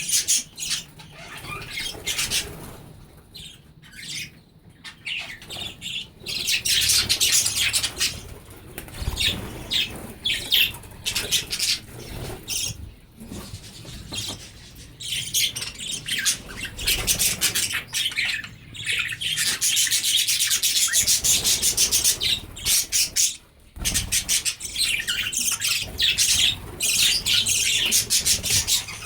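A colony of budgerigars chattering and squawking, many birds calling over one another in a fast, constant stream of short high-pitched calls. It starts sparser and becomes busy after a few seconds, with a brief lull late on.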